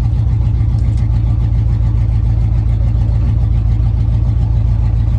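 Chevy cargo van's engine running at idle through its loud exhaust, a steady low rumble.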